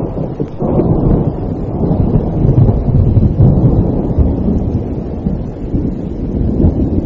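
Rolling thunder over steady rain: a deep rumble swells about a second in, is loudest around the middle and slowly fades.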